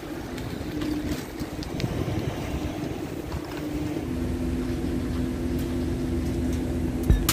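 Steady low machine drone with two held hum tones, the lower one settling in about halfway through.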